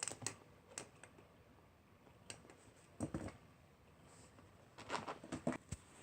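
Light, irregular taps and clicks as a cat paws at a fidget spinner on a hard surface, coming in small clusters.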